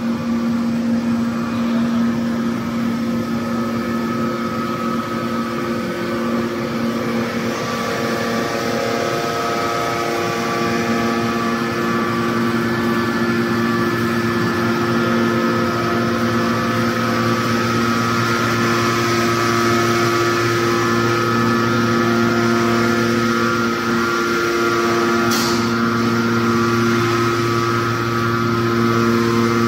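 Hydraulic power unit of a four-column hot forging press running steadily, a hum made of several held tones with a hiss above it; a deeper tone comes in about ten seconds in. A single sharp click sounds near the end.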